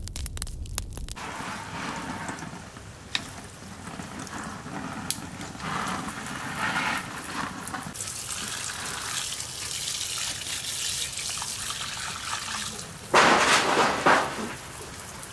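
Water running from a garden hose spray nozzle and splashing onto a split, gutted fish, rinsing it. A short low rumble comes first, and a louder rush lasting about a second comes near the end.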